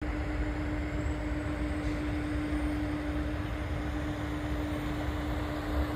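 Boeing 767-200 converted freighter on final approach, heard from the ground: a steady jet rumble and hiss with a constant low hum under it.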